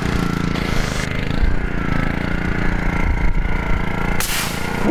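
Gas pressure washer's small engine running steadily. Near the end, a short hiss as the water jet sprays from the wand.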